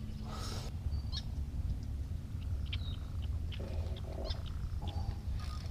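A steady low rumble with a few faint, short bird chirps and scattered small clicks.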